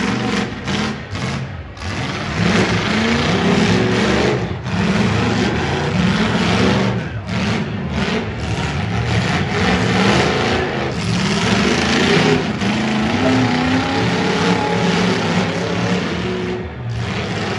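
Demolition derby cars' V8 engines running hard and revving, the pitch rising and falling again and again over a dense engine and exhaust din.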